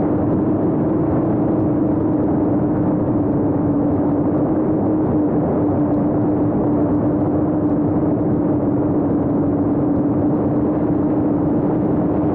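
Brushless motors and propellers of a 7-inch FPV quadcopter in steady forward flight, heard from a camera on the drone itself: one steady whining hum whose pitch eases slightly lower, over a dense rush of propeller wash.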